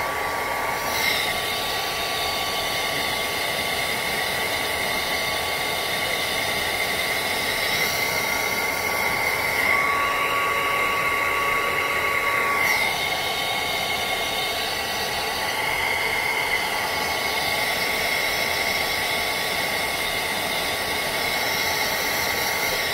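Small handheld hair dryer running steadily with a constant whine, blowing to dry lace base protector sprayed on the skin along the hairline. Its sound shifts a little for a few seconds near the middle as it is moved about.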